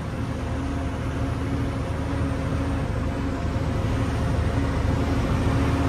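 Engine drone and road noise inside a moving truck's cab, steady and growing slightly louder.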